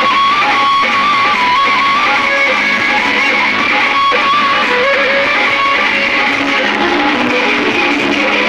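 Background music led by guitar, with a melody that steps between held notes over a steady strummed backing.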